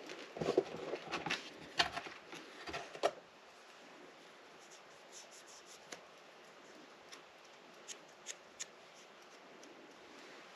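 Close handling of small parts and tools: a quick flurry of clicks, scrapes and rustles over the first three seconds, then a few faint, scattered ticks.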